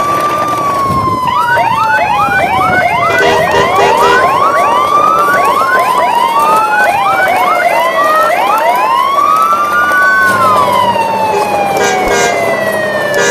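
Electronic siren sound wailing in slow cycles, each rising quickly then falling slowly over about four seconds, with quick rising chirps layered over it.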